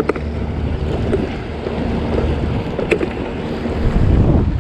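Wind buffeting the microphone over choppy sea water washing against a concrete breakwater: a steady low rumble that swells near the end, with a couple of sharp clicks.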